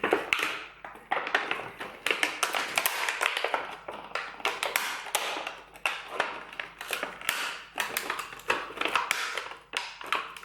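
Light-bulb packaging being forced and torn open by hand: a long run of crackling, scraping and sharp clicks as the hard-to-open box gives way.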